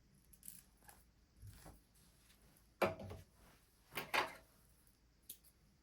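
Handling noises of thread cones and thread at an industrial sewing machine's thread stand: a few short knocks and rubbing clatters, the loudest a little under three seconds in and again about four seconds in, with a small sharp click near the end.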